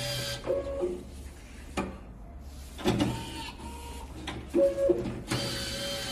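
Electric automatic booklet maker working through a cycle. A steady motor hum with paper-feed hiss runs, then stops, and is followed by a string of knocks and clunks from the stapling and folding mechanism with quieter gaps between them. The motor hum starts again near the end.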